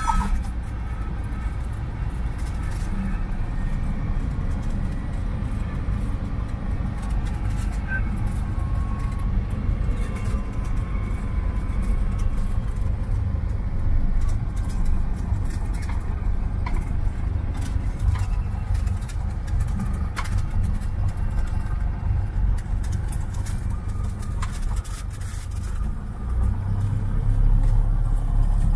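Cessna 172's piston engine and propeller running, heard from inside the cabin as a steady low drone. It gets louder and deeper about 26 seconds in.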